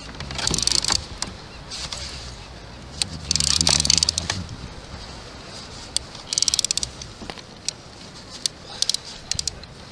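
A hooked coho salmon splashing at the surface, with rattling clicks, in four short bursts.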